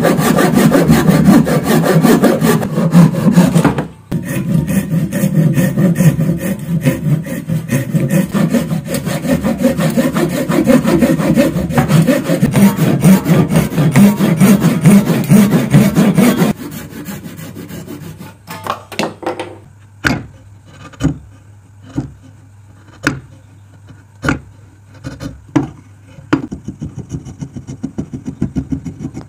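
Hand saw cutting into a hardwood block in a vise, rapid steady strokes. The sawing stops about sixteen seconds in, followed by sharp knocks about once a second as a chisel works the cut, then quick scraping of a chisel paring out wood chips near the end.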